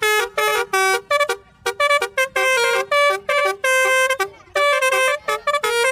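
Multi-tone Basuri 'telolet' bus horn playing a quick tune of short, changing-pitch notes, with a few longer held notes around the middle.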